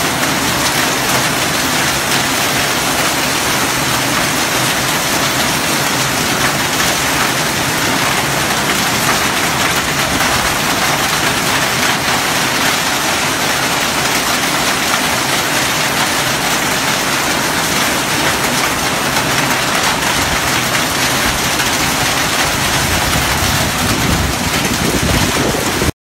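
Heavy rain mixed with hail pelting a wet concrete porch floor and a wooden bench, a loud, steady, dense hiss of falling drops and hailstones that cuts off suddenly at the end.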